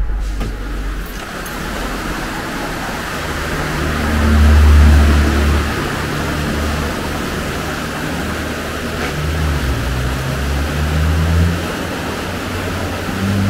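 Steady hiss of rain. Under it, the low rumble of cars passing on a wet road swells twice, then once more near the end.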